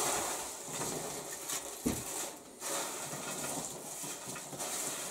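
Dried minnows sliding and pattering off a metal baking tray into a sack, a steady dry rustle with one sharp knock of the tray about two seconds in.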